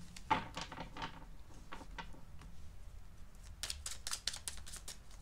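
Tarot cards being shuffled and handled: a few soft card clicks near the start, then a quick run of card snaps about three and a half seconds in.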